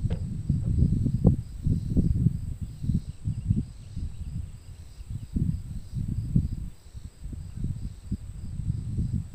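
Insects chirping in a faint, even pulse of about three chirps a second, under a louder, uneven low rumble of wind on the microphone.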